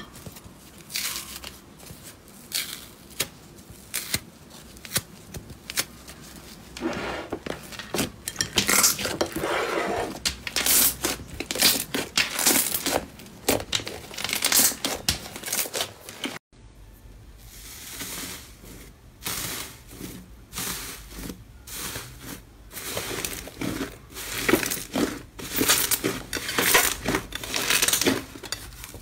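Slime being squeezed, stretched and torn apart by hand, a dense run of irregular crackles and pops. Partway through, the sound drops out for a moment and goes on with another slime being pressed.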